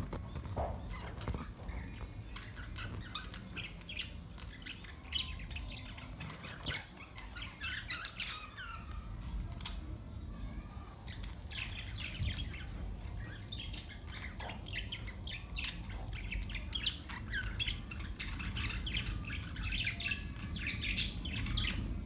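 A flock of budgerigars chattering: many quick, overlapping chirps and warbles with the odd squawk, over a steady low rumble.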